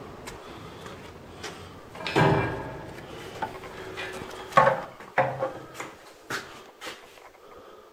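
A grating metal scrape about two seconds in, then several sharp clanks with a short ring, from a steel-barred prison gate being handled.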